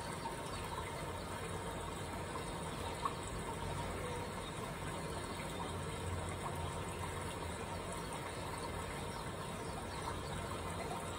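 Steady background hiss with a faint low hum, and a single small tick about three seconds in.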